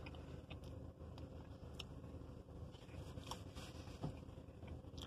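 Quiet car-cabin room tone: a low steady hum with a few faint, short clicks.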